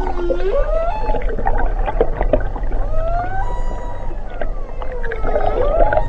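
Humpback whale song heard underwater: a string of gliding moans and whoops, several sweeping upward in pitch, with a few short clicks over a steady low rumble.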